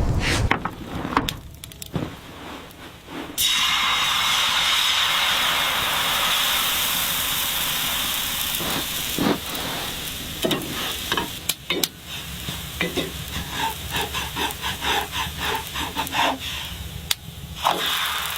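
A steady sizzling hiss starts a few seconds in, then gives way to a dense run of crackles and pops.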